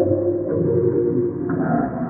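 Creepy horror sound effect: dark, droning ambient tones in several layers, with new gong-like tones coming in about half a second and one and a half seconds in.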